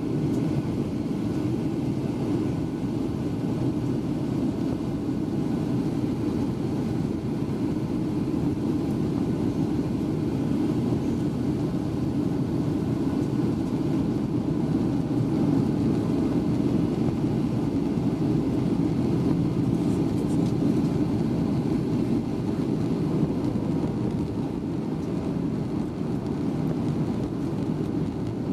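Steady low roar inside the cabin of a Boeing 737-800 in flight, the noise of its CFM56-7B engines and rushing air, swelling slightly midway.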